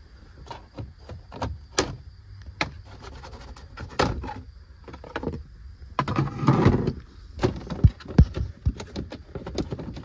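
Plastic steering-column trim in a Ford F-250 cab being pried and pulled loose by hand: a string of clicks and knocks as the clips pop, with a scraping rustle about six seconds in and a few sharp knocks just after.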